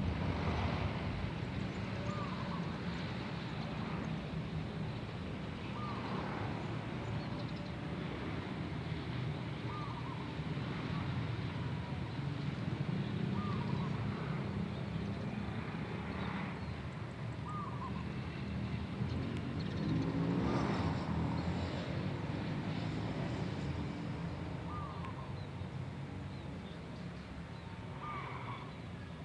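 A wild zebra dove (perkutut) cooing over and over, with a short call about every two and a half seconds. The owner calls its big "bedah karang" voice very loud, but here it sits faint over a steady low outdoor rumble. A broader surge of noise rises and falls about two-thirds of the way through.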